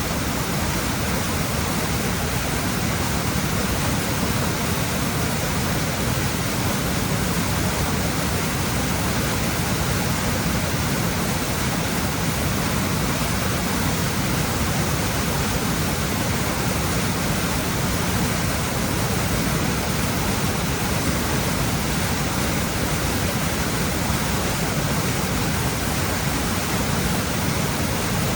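Waterfall and river rapids rushing in a steady, unbroken wash of water noise, heaviest in the low range.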